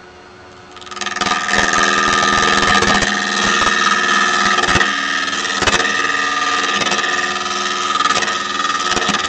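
Bowl gouge cutting the outside of a natural-edge bowl blank spinning on a wood lathe. The cut starts about a second in and goes on steadily as a loud scraping hiss with a high whine, broken by a few sharp ticks.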